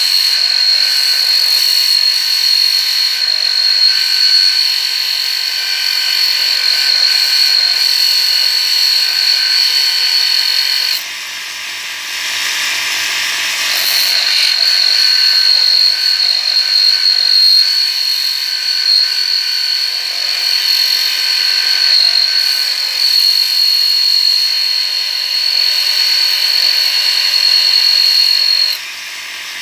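Handheld electric grinder running with a steady high whine, which drops out for about three seconds about eleven seconds in and again near the end.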